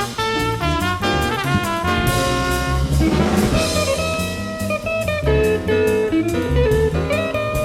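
Live small-group jazz: a trumpet plays lines over walking bass, piano and a drum kit, with a wash of cymbals about three seconds in. It is an FM radio broadcast taped onto cassette.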